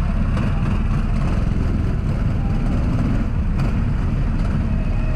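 Go-kart engine running steadily close by, a dense low rumble that holds an even level throughout.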